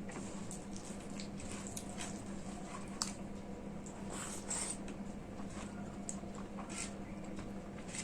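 Close-up eating sounds of rice and curry: wet squishing, smacking and chewing in small irregular clicks, with a sharper click about three seconds in and a louder wet smack a little after four seconds. A steady low hum runs underneath.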